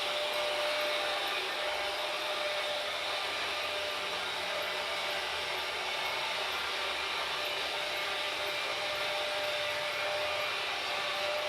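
Freight train running: a steady rushing rumble of the moving train with a faint, steady tone held underneath, unchanging throughout.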